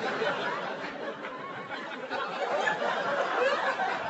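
Studio audience laughing, a dense crowd laugh that starts to die down near the end.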